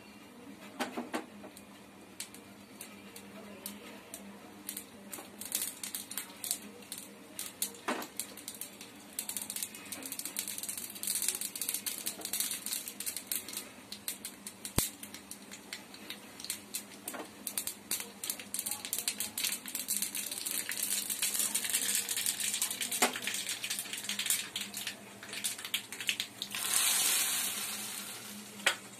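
Mustard seeds and urad dal spluttering in hot oil in a small tempering pan: scattered crackles and pops that grow denser and faster as the oil heats, with an occasional knock of the pan. A brief louder sizzle comes near the end.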